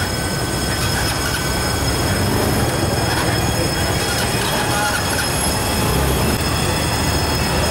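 Fire truck's water pump running to feed the roof water cannon: a steady, loud rush of engine and water-jet noise with a thin high whine over it.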